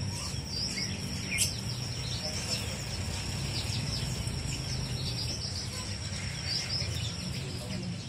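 Many caged songbirds chirping and calling over one another in quick, scattered short notes, over a steady high-pitched whine and a low hum.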